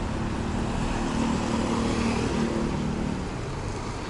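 Street traffic: a motor vehicle's engine running nearby over steady road noise, easing off after about three seconds.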